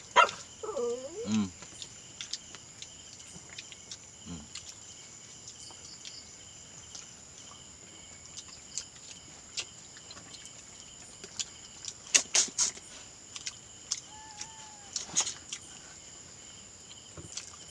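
Night insects chirring steadily at a high pitch, with scattered sharp clicks and a short burst of louder clicks about twelve seconds in.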